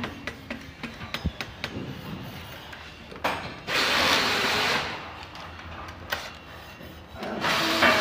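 Cordless drill-driver running in two short bursts, about three seconds in and again near the end, driving a bolt on an electric scooter's disc brake caliper. Small metallic clicks of the parts being handled come before the first burst.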